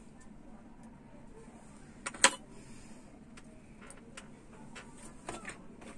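Small clicks and taps from tweezers and thin wires being handled on the TV panel, with one sharp click about two seconds in and a few lighter ticks later, over a steady low hum.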